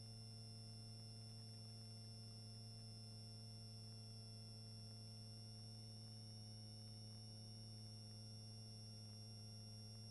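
Faint, steady electrical hum made of several constant tones, with no other sound; close to silence.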